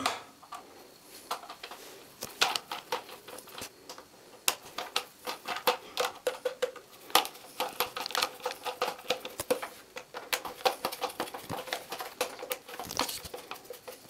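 Screwdriver tightening long screws into the plastic cyclone assembly of a Dyson V6 cordless vacuum: irregular small clicks and ticks of metal on hard plastic as the screws are turned and the parts are handled.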